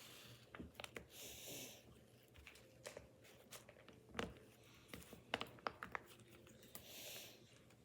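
Faint scattered clicks and taps of a small plastic candy-kit tray being handled and prodded, the sharpest about four seconds in, with two short soft hisses of rustling or breath.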